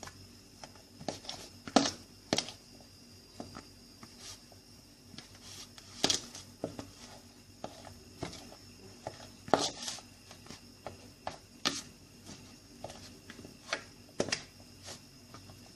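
A fork mashing and mixing a boiled-potato mixture in a bowl, clinking and knocking against the bowl at an uneven pace, about one or two strikes a second, with a few louder knocks.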